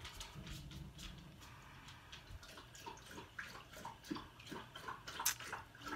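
Lotion being rubbed into the hands: faint, irregular wet squishing and small clicks.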